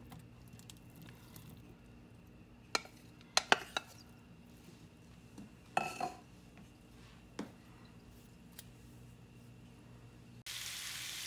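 A few sharp knocks and clinks as diced ham is tipped from a plastic container into a nonstick frying pan. Near the end, a steady sizzling hiss of the ham frying in olive oil starts abruptly.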